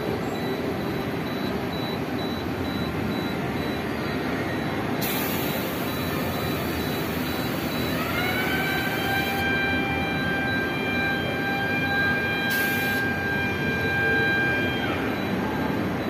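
Drop tower ride machinery running. A high hiss comes about five seconds in and lasts several seconds. Then a motor whine rises in pitch, holds steady for about seven seconds and dies away near the end, over a steady mechanical background.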